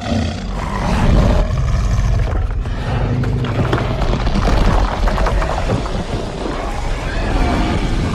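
Sound-effect vocalization of the Jagupard, a fictional big-cat-like creature: a long, deep growl that runs without a break.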